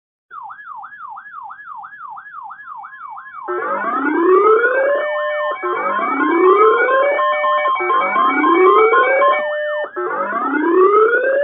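Electronic siren tones. A fast up-and-down warble, about three sweeps a second, starts just after the beginning. About three and a half seconds in, it turns louder as several sirens overlap: rising wail sweeps, four of them, each climbing for over a second and repeating about every two seconds.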